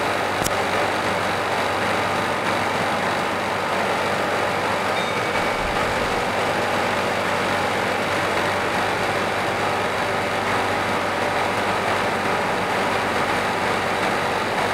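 Steady background noise of a large hall: an even hiss with a low hum running underneath, and no distinct events.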